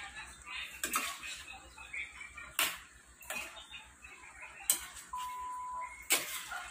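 A metal spoon clinking and scraping against a stainless steel pan as a thick pork stew is stirred: a handful of sharp knocks, spaced irregularly about a second apart.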